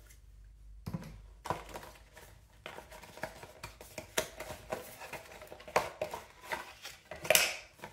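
Hands handling a cardboard retail box and its paperboard insert: a run of light taps, scrapes and rustles of cardboard, with a louder sliding scrape near the end.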